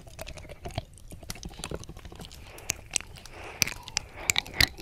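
Close-up wet mouth sounds of ASMR 'ear eating': lips and tongue smacking and clicking against the silicone ear of a 3Dio binaural microphone. A quick irregular run of sharp wet clicks, loudest in the last second or so, with a soft hissing stretch in the middle.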